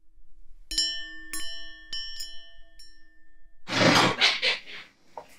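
A short chime jingle of five struck, bell-like notes, each left ringing, over the logo. A little past halfway it gives way to a second of splashing and handling noise.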